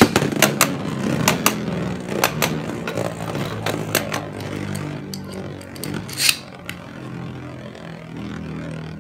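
Two Beyblade Burst spinning tops, Fengriff F2 Force Quake and Gaianon G2 Quarter Fusion, just launched into a plastic stadium. Their plastic layers clash in a quick run of sharp clacks over the first few seconds, with one more loud clash about six seconds in, over a steady whir of spinning.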